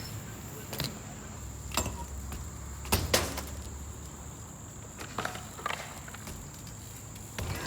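BMX bike knocking and clattering on a skatepark ramp and its coping during a lip-trick attempt: a scattered series of sharp knocks, the loudest about three seconds in.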